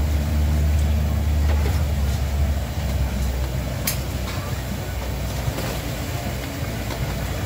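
Battered cempedak pieces deep-frying in a wok of hot oil, a steady sizzle, over a low rumble that is strongest in the first couple of seconds. A single sharp click about four seconds in.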